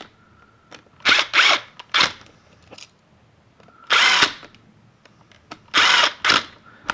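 Cordless drill-driver run in several short bursts, screwing down the unused terminal screws on a wall receptacle.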